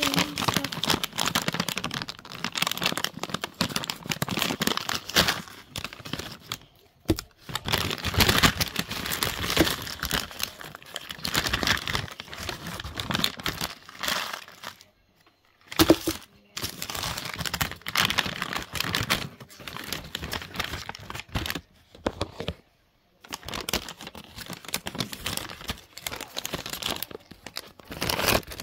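Packaging of a mystery bag of sweets being handled and opened, crinkling and tearing in long stretches broken by a few short pauses, with one sharp click partway through.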